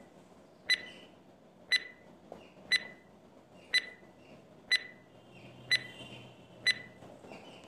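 Countdown stopwatch sound effect: a short, sharp tick once a second, seven times.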